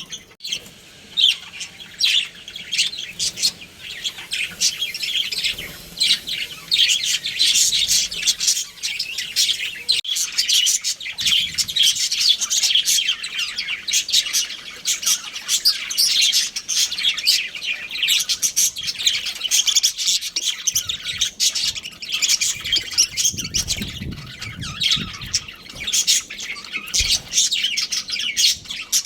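Budgerigars chirping and chattering, many quick overlapping chirps with no pause.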